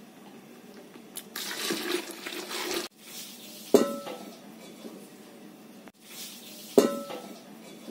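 Water splashing into a large aluminium cooking pot for about a second and a half, then two sharp metal clanks, each with a short ring, about three seconds apart.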